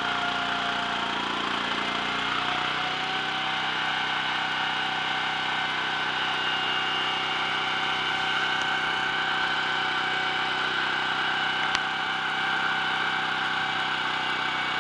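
Small Honda stationary petrol engine running at a steady speed, spinning a motorcycle's front wheel fast with a steady whine, while the brake shoes, coated in fine grinding paste, rub lightly on the high spot of an out-of-round brake drum to lap it round. The pitch dips slightly near the start, then holds steady; a single sharp click comes near the end.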